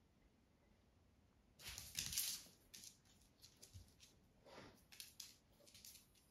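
Soft scuffling and rustling of a kitten and a small dog play-wrestling on a doormat: paws and claws scraping the mat and floor in a few brief bursts, loudest about two seconds in.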